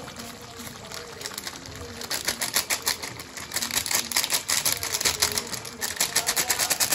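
Foil spice packet crinkling and being tapped as masala powder is shaken out of it into a kadai of boiling water: a rapid, dense clicking that starts about two seconds in, with a brief dip near the end.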